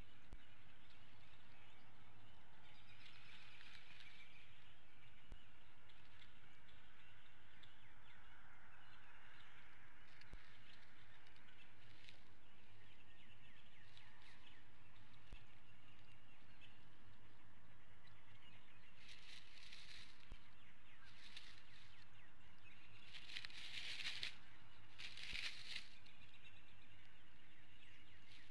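Faint distant bird chirps over a steady low hum, then several short rustles of straw and sticks in the second half as the bald eagles shift and settle in the nest.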